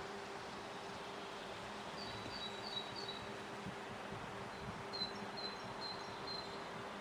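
Faint outdoor ambience: a steady low hum throughout, with two short runs of four quick high chirps from a small bird, about two and five seconds in.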